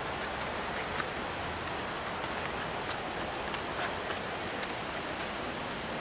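Steady outdoor hiss with a thin, high insect buzz that comes and goes, and scattered light clicks.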